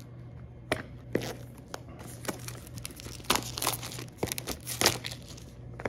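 Plastic shrink wrap being torn open and peeled off a cardboard game box, with a run of crinkling, crackling tears that come thickest in the middle.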